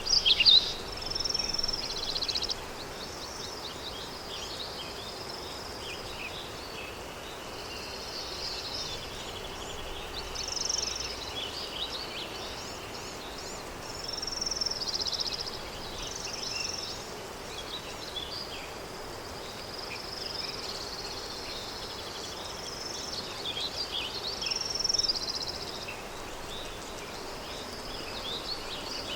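Countryside ambience: many songbirds chirping and trilling, loudest in the first couple of seconds, over a steady low rush of wind.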